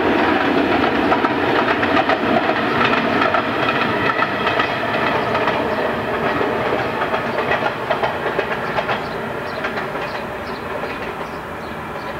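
A passenger train hauled by a class 757 diesel locomotive rolls past, its coach wheels clicking over the rail joints. The sound fades gradually as the train moves away.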